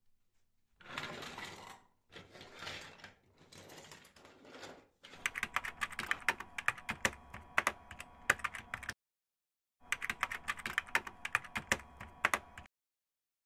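Computer keyboard typing clicks: two quick runs of keystrokes with a second's silence between them, laid over text being typed out on screen. Before them come a few short, soft rustling swells.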